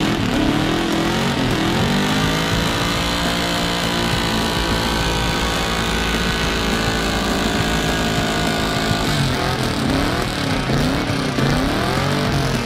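V8 car badged 5.0 doing a stationary burnout: the engine revs climb, hold high and steady while the rear tyres spin and squeal, then the revs swing up and down about twice a second near the end.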